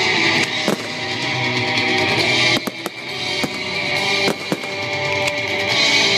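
Loud rock music with drums and electric guitar, sharp hits about once a second.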